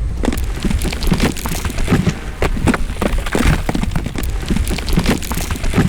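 A dense run of clattering knocks and cracks, several a second, over a steady low rumble.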